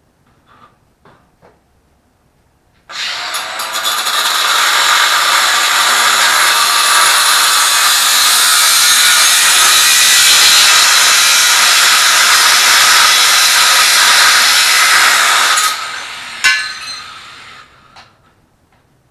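A few faint clicks, then a Ryobi 18V cordless angle grinder starting about three seconds in and running under load for about thirteen seconds, a dense harsh hiss, before it is released and winds down.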